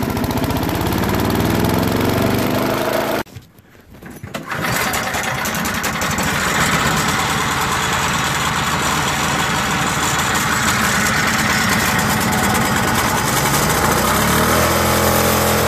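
A walk-behind lawn mower's small engine running, cutting off abruptly about three seconds in. A moment later a Toro single-stage snowblower's small engine comes up to speed and runs steadily, its note shifting near the end.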